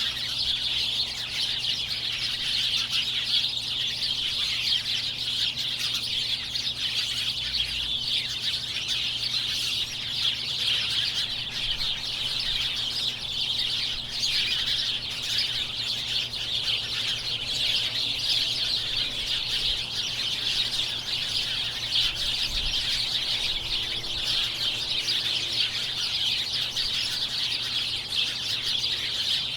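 A large flock of small birds chirping all at once: a dense, continuous high-pitched chatter of many overlapping calls with no pauses.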